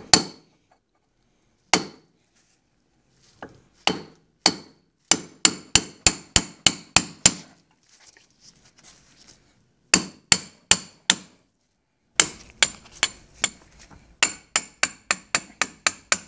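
Hammer blows on an old socket extension used as a drift, driving the top pin out of a 1978 Johnson 115 HP outboard's stern bracket: sharp metal-on-metal strikes, a few single blows at first, then runs of quick strikes about three a second with short pauses between.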